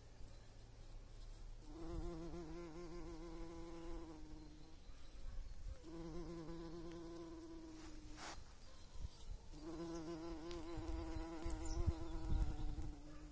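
Bumblebee buzzing in flight around the flowers: a steady, slightly wavering drone that comes in three stretches of a few seconds each, breaking off in between as the bee lands on a flower. A short click about eight seconds in and some low thumps near the end.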